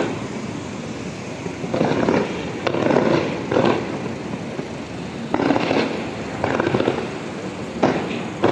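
Aerial fireworks going off: a sharp bang, then a series of crackling bursts about a second apart, and two more sharp bangs near the end.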